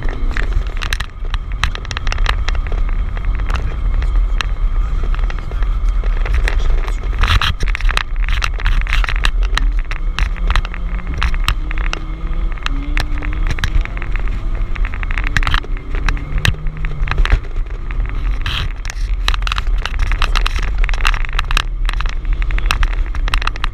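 Car engine and road noise heard from inside the cabin while driving on a snow-covered road: a heavy low rumble whose engine note rises and falls, with many sharp clicks and knocks throughout.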